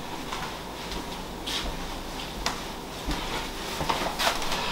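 Low room tone with a few faint, short clicks and knocks spread about a second apart.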